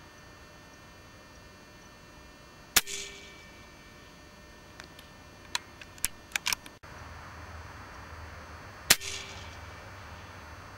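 Two shots from an Air Arms S410 pre-charged pneumatic air rifle, about six seconds apart. Each is a sharp crack with a short ringing tail. A few faint clicks fall between them.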